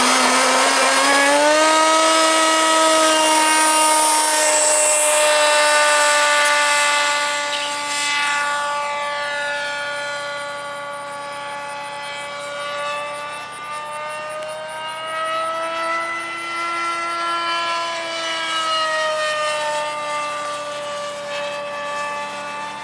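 Nitro ducted-fan RC jet with a K&B glow engine in a Dynamax fan unit. It winds up to full throttle in the first couple of seconds, then holds a steady high-pitched whine with many overtones. After about seven seconds it grows quieter and its pitch drifts slowly up and down as the plane moves about.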